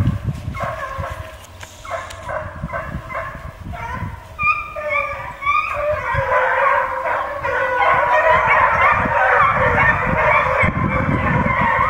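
A pack of Penn-Marydel foxhounds baying on a line, the sign that they are running a fox's scent. It begins as scattered voices and swells to full cry, many hounds giving tongue together, about halfway through.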